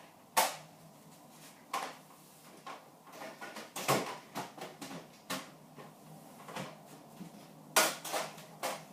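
Handling noise: about half a dozen scattered knocks and clunks of hard objects being picked up, moved and set down.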